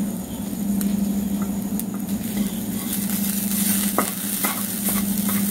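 Cashew nuts, grated coconut and spices frying in coconut oil in a pan, sizzling while a spatula stirs them. The sizzle grows louder about halfway through, and knocks and scrapes of the spatula against the pan come in the last second or two, over a steady low hum.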